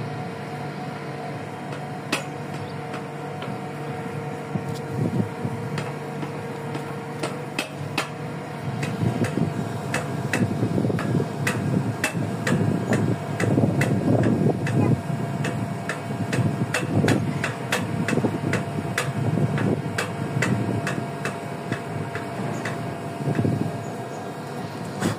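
Metal hooks and snap clips clicking and clinking against a stainless-steel longline hook rail as they are hung by hand, over a steady machine hum. From about eight seconds in, a louder, uneven low rumble joins.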